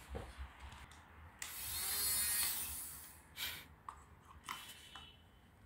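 Small battery fan motor of a toy bubble gun whirring for about a second and a half when the trigger is pressed, starting about a second and a half in, followed by a few faint plastic clicks.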